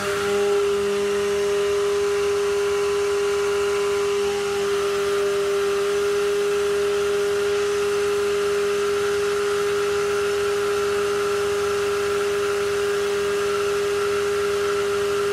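Electric stick blender running steadily in a bucket of coconut-milk soap batter, blending lye solution into the oils. It gives a constant hum at one pitch with no change in speed.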